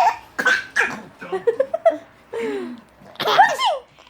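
A young child laughing at sneezing, in several high-pitched bursts: a quick run of short giggles in the middle and a long squealing laugh near the end.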